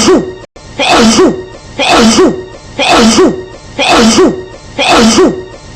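A woman's sneeze, cut short and looped so that the same sneeze repeats about once a second, around six times, with a brief dropout about half a second in.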